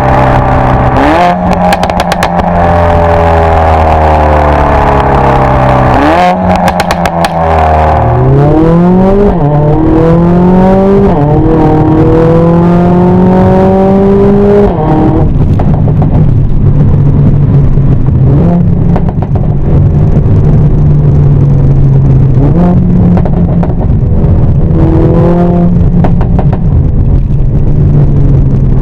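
Mercedes-AMG A45 S's turbocharged 2.0-litre four-cylinder through a Supersprint exhaust with a 100-cell downpipe. The revs fall with two bursts of pops and crackles on the overrun in the first several seconds. The engine then accelerates, climbing in pitch with two quick upshifts, and runs at a steady engine speed for the rest.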